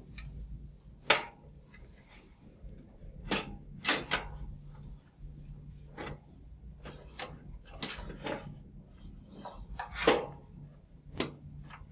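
A UR protective relay's CPU module knocking and scraping against the chassis tracks while it is worked into place, about ten separate clicks and knocks, the sharpest about a second, four seconds and ten seconds in. The module is not yet lined up in its top and bottom tracks, so it will not slide in.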